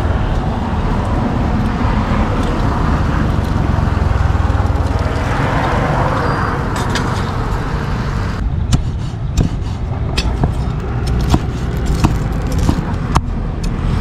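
Steady rumble and hiss of street traffic, motorbikes and cars going by. From about halfway through come sharp, irregular knocks and clicks of a cleaver and metal tongs on a wooden chopping board as grilled pork is cut.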